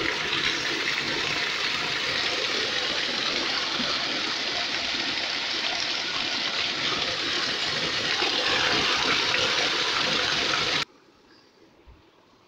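Muddy wastewater from a mineral wash pouring down a hole in the ground and running along an earth channel: a steady rush of water that cuts off suddenly about eleven seconds in.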